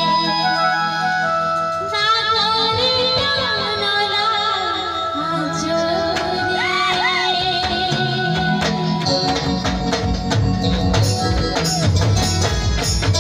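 Live jhumar folk music: a woman singing over electronic keyboard accompaniment, with the drums coming in with a steady beat about two-thirds of the way through.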